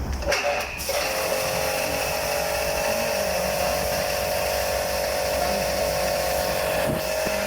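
Washing machine drum spinning, its motor giving a steady high whine that sets in about a second in, replacing a lower rumble; a short click near the end.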